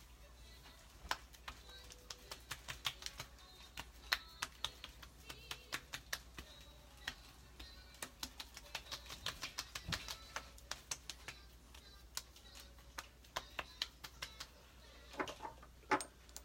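Fingertips patting and tapping on facial and neck skin, an irregular run of light slaps as toner is pressed into the skin, with a couple of louder knocks near the end.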